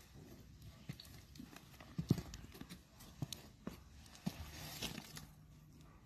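Goats' hooves stepping and scuffing on dirt and gravel: irregular clicks and knocks, the loudest about two seconds in.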